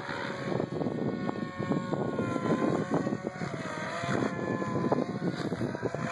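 SAB Goblin 770 electric RC helicopter in flight: the whine of its motor and rotor drive, with several tones rising and falling in pitch as the rotor speed changes, over the rush of the rotor blades.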